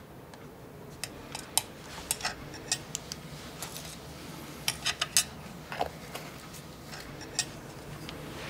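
Thin metal spatula tapping and scraping against a small plastic cup and a hard work surface while scooping out and portioning powders: a string of irregular light clicks and ticks.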